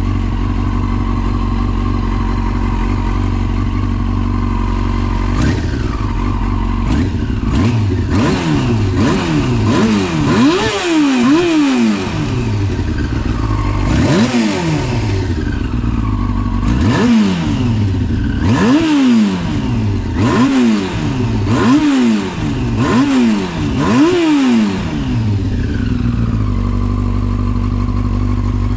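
Yamaha YZF-R6 (5EB) inline-four engine breathing through a Striker titanium full exhaust: idling steadily, then blipped repeatedly with quick revs that rise and fall back, about a dozen times, before settling to idle near the end. The seller reports no abnormal engine noise.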